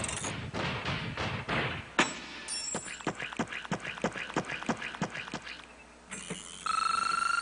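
Cartoon footstep sound effects: light tiptoeing steps in a quick even rhythm of about four a second, after a single sharp click about two seconds in. Near the end a steady high electronic tone starts.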